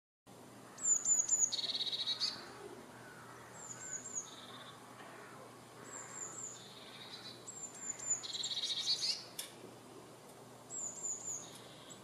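Eurasian blue tit singing: about five phrases, each made of two or three thin high notes followed by a lower trill.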